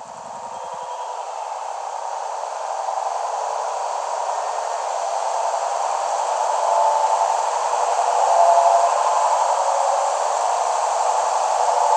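A steady rushing noise, with no clear pitch or beat, that fades in from silence and grows gradually louder.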